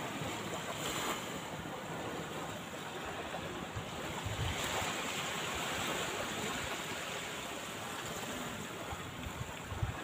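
Small waves washing onto a sandy beach, a steady hiss that swells once about halfway through. Wind buffets the microphone with low thumps now and then, most plainly near the end.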